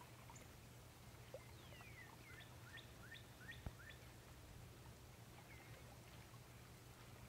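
Faint bird calls: a quick run of about five short rising chirps a couple of seconds in, with a few scattered curling notes, over a low steady hum. A single click comes right after the chirps.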